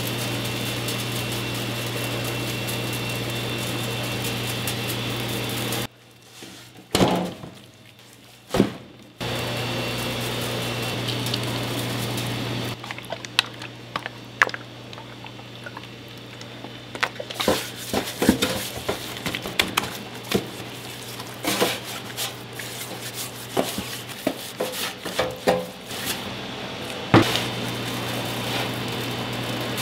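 Kitchen work sounds: a steady mechanical hum that cuts in and out abruptly several times. Through the middle stretch it gives way to scattered sharp clicks and knocks of tools and utensils being handled.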